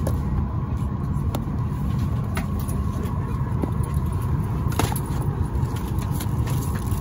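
Steady low rumble of an airliner cabin aboard a Boeing 737-800, with a faint steady hum above it. A few light clicks and taps, the loudest about five seconds in, come from handling the drink menu and seat-back pocket.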